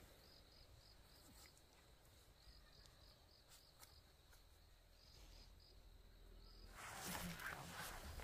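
Insects, crickets by the sound of it, chirping faintly in a regular high pulse, with a steady high insect whine behind them. A louder rustling starts near the end.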